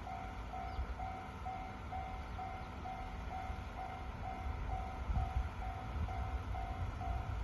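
Railway level-crossing warning bell ringing steadily at about two dings a second, over a low rumble that swells briefly about five seconds in.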